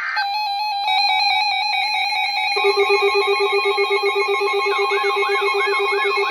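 Many NOAA weather radios going off together at a severe thunderstorm warning: steady alert tones, with a rapid low beeping joining in about two and a half seconds in and a warbling siren-like alarm about four and a half seconds in.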